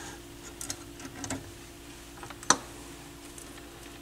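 Small clicks and light rattling as speaker wires are fitted to the Pioneer SX-780 receiver's rear speaker terminals, with one sharp click about two and a half seconds in, over a faint steady hum.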